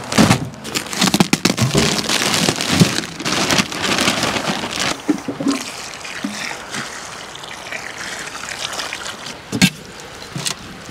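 Seed-starting compost poured from a plastic bag into a wheelbarrow, a dense rustling patter, then about halfway through water poured from a watering can onto the compost, a quieter steady splashing trickle.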